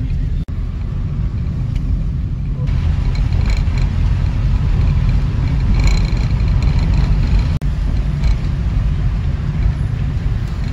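Car driving on a hill road, heard from inside the cabin: a steady low rumble of engine and tyres, with two brief cut-outs in the sound.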